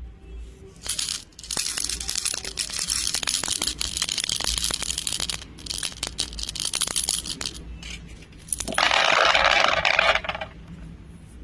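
Small hard beads rattling and clicking against each other, a dense crackle of many ticks for several seconds, then a louder rushing pour for about a second and a half near the end.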